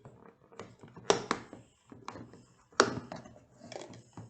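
Plastic slime container being opened by hand: a series of sharp clicks and knocks of the lid, the loudest about a second in and again near three seconds.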